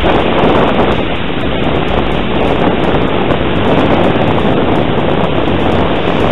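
Steady, loud wind noise buffeting the built-in microphone of a small FlyCamOne2 camera hanging from a kite line in the air.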